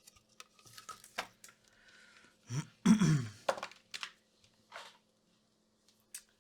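Light clicks and handling noises of tools and a circuit board on a workbench over a faint steady hum, with a short wordless vocal sound falling in pitch about three seconds in.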